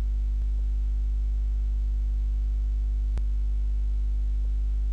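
Steady electrical mains hum from the recording chain, a low buzz with its overtones at an unchanging level. A faint click comes about half a second in, and a sharper single click a little after three seconds.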